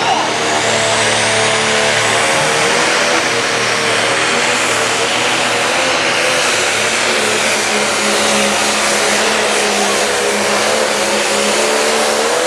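Pro stock pulling tractor's turbocharged diesel engine held at full throttle while it drags the weight sled. A high whine climbs during the first second or so, then the engine note stays loud and steady.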